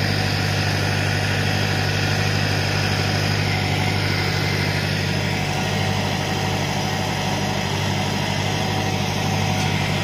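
An engine or motor running steadily nearby: a constant low droning hum with no change in speed.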